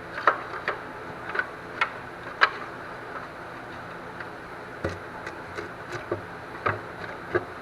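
Sharp metallic clicks of hand tools at work on a bolt, coming singly and irregularly about half a second apart, with a pause of about two seconds midway.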